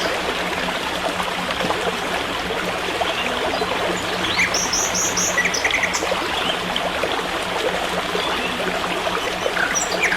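Forest stream running steadily, with small birds chirping briefly about halfway through and again near the end.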